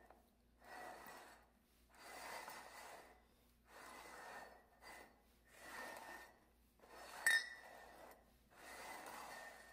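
Ceramic mugs sliding over a wooden floor in a run of scrapes, one about every second and a half, as they are shuffled. About three-quarters of the way through, two mugs knock together with one sharp clink.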